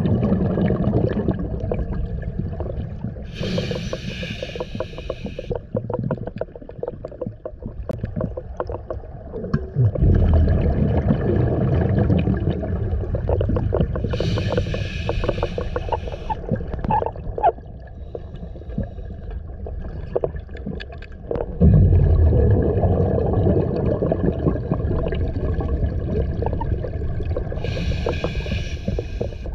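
Scuba diver breathing through an open-circuit regulator underwater, slow and even: three times, a low rumbling rush of exhaled bubbles followed by a short hiss as air is drawn through the regulator, about twelve seconds per breath. Small clicks and ticks of gear are scattered through it.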